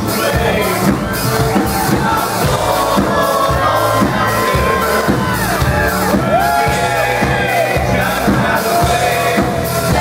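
Loud live country-rap band music with a steady beat and gliding melodic lines, with crowd shouts mixed in.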